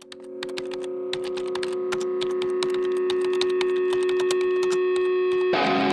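Quick, irregular computer-keyboard typing clicks, a typing sound effect for on-screen text, over a steady held tone that fades in. Music starts just before the end.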